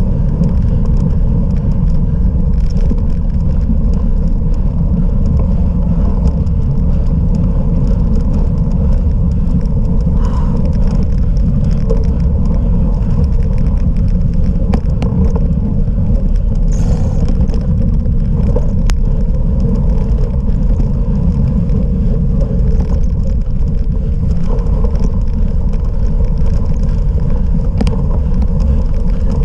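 Cyclocross bike ridden off-road: a steady low rumble of wind and tyre noise with scattered small clicks and rattles from the bike.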